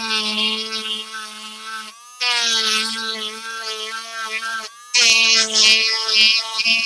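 Chicago Electric handheld rotary tool with a diamond ball bit running in three spells with short pauses between, a steady high motor whine with a scratchy grinding hiss as the bit cuts into the material.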